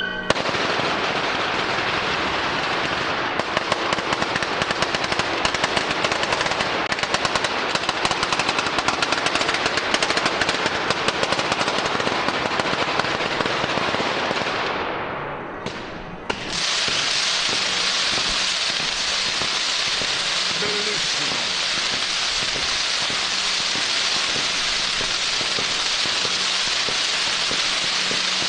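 Fireworks on a festival cart going off: a dense, rapid crackle of firecrackers for about the first half, then, after a brief dip, a steady sputtering hiss from the firework fountains.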